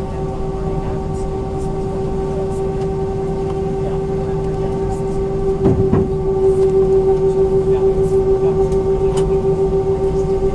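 Airbus A320's IAE V2500 jet engines heard from inside the cabin during taxi: a steady hum with a strong held tone over a low rumble. About six seconds in there is a short low thump, and then the hum grows louder and pulses in a regular beat.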